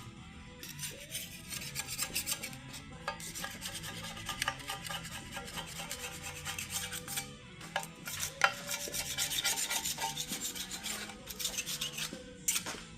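Quick, repeated scraping strokes of a hand tool on metal, broken by a short pause about halfway through and another near the end: old gasket maker being scraped off a mating flange.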